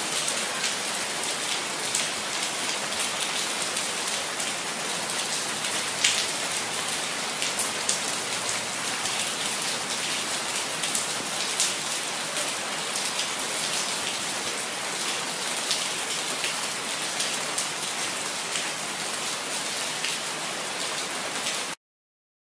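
Steady rain falling, a dense hiss with many sharp individual drop hits, one louder hit about six seconds in; it stops abruptly near the end.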